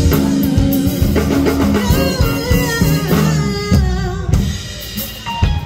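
Live band music: drum kit, electric bass and keyboards playing while a woman sings into a microphone. The band drops back in level near the end before the drums come back in.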